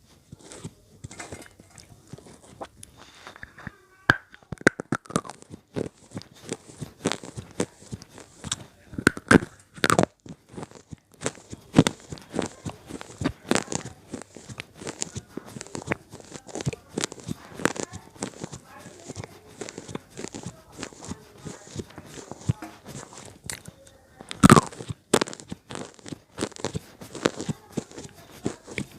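Slate pencils being bitten and chewed: a dense, irregular run of sharp crunches and snaps, the loudest a bite about 24 seconds in.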